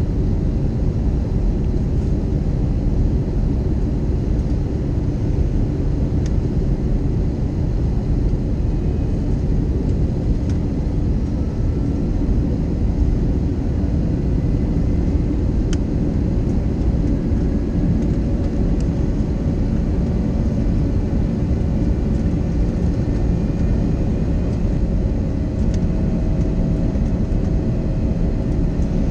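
Steady cabin noise of an Airbus A321neo on approach, heard inside the cabin: a low rumble of airflow and its Pratt & Whitney PW1100G geared turbofan engines. A faint engine whine rises gently in pitch over the last few seconds.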